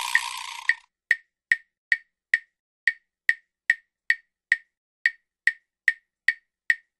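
A steady percussion beat of sharp wood-block clicks, evenly spaced at about two and a half a second, with silence between. A steady hiss cuts off just under a second in.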